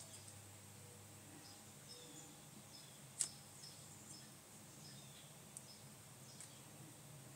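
Near silence outdoors: a faint low hum with scattered short, high bird chirps, and one sharp click about three seconds in.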